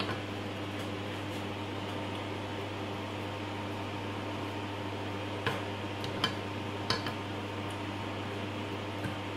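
Steady low electrical hum with a background hiss, like a fan or appliance running in a small room. Three light clicks about five and a half to seven seconds in, and a faint one near the end, of fingers and food knocking against a plate while eating by hand.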